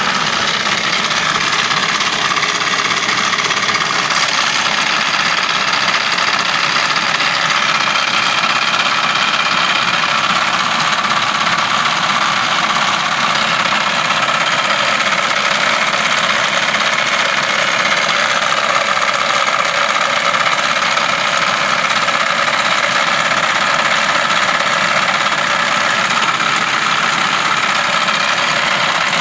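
A van's engine idling with a steady clattering noise that comes with the air conditioning being switched on, a sign of a fault in the air-conditioning system.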